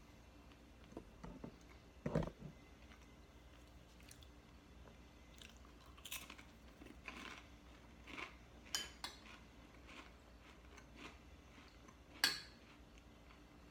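A person chewing and crunching a cracker, with scattered soft crunches and clicks. A dull thump comes about two seconds in, and a sharp click near the end as the spoon goes into the soup bowl.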